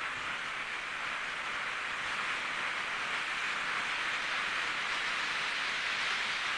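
A steady, even hiss with no separate strokes or pitch, growing slightly louder about two seconds in.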